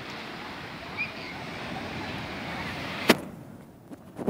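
Seaside ambience: a steady noisy wash of wind and small waves lapping at a sandy shore. A single sharp click about three seconds in is followed by a brief quieter stretch.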